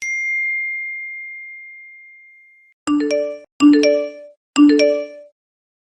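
iPhone notification sounds: a single high ding that fades away over nearly three seconds. Then come three short chimes about a second apart, each two bright bell-like notes in quick succession.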